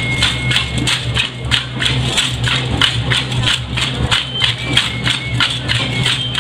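Hand rattles of procession dancers shaken together in a steady rhythm, about four to five strokes a second, over a steady low hum.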